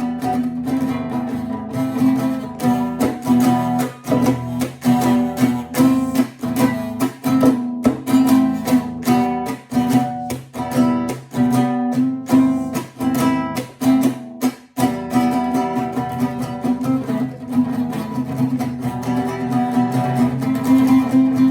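Acoustic guitar strummed in a fast, driving rhythm, switching between two chords, E minor and A minor. The strokes are hard and percussive.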